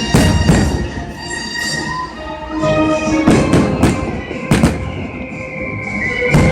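Aerial fireworks exploding in loud bangs over music played through the stadium PA: two bursts at the start, a quick run of several in the middle, and one more near the end.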